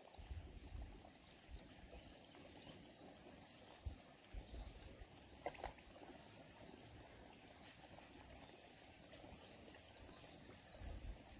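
Faint outdoor ambience: a steady high-pitched insect drone, with scattered short chirps and irregular low rumbles, like wind on the microphone.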